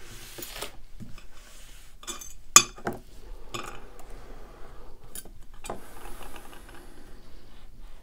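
A small metal lock being handled, with light clicks and knocks. About two and a half seconds in there is one sharp metallic clink as it is set down in a parts tray, then a few softer knocks.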